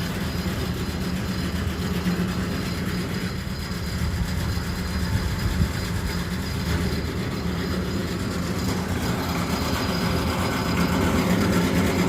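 An engine running steadily with a constant low hum, typical of the machinery on a concrete pour.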